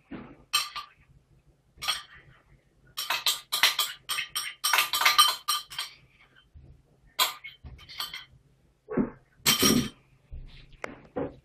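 A fork and ceramic bowls clinking and scraping together as sauce is tipped and scraped from one small bowl into a larger one. The clinks come in a quick cluster a few seconds in. A few duller knocks follow near the end.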